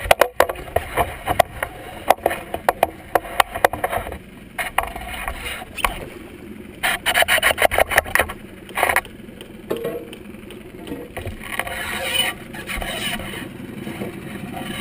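Handling noise from a camera mounted on a long pole: irregular clicks, knocks and rubbing as the pole is swung about, with a quick run of rattling clicks about seven seconds in.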